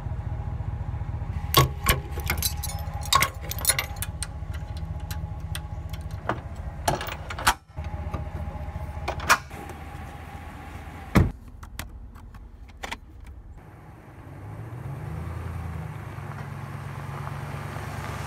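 Pickup truck engine idling with a run of metallic clinks and clicks over it, and one loud knock of a truck door about two-thirds of the way through. In the last few seconds the engine note rises, holds and falls as the truck pulls away.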